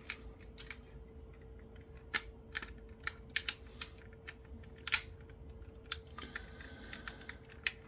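Sharp, irregular clicks and ticks of a plastic mouse shell being pried at with a tool, a stubborn snap-on cover held by a catch. A faint steady hum runs underneath.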